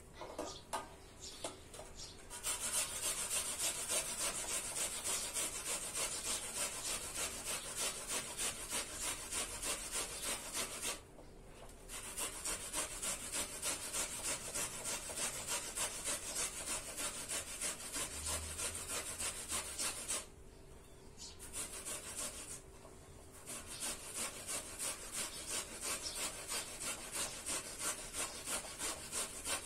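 A red onion being grated on a metal box grater, in quick regular rasping strokes of about two a second. The grating stops briefly about a third of the way in, and again for a couple of seconds about two-thirds through.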